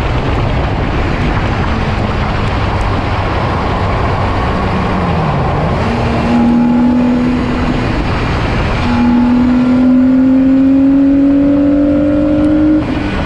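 BMW E46 race car at speed on a track: its engine note dips briefly about five seconds in, holds, then climbs steadily in pitch under acceleration and cuts off abruptly near the end, over heavy wind and road noise.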